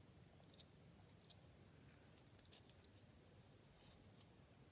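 Near silence: room tone, with a few faint short ticks.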